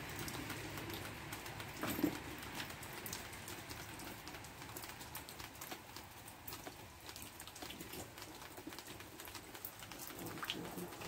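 Faint, irregular drips of water leaking from the ceilings of a rain-soaked house, with a soft knock about two seconds in.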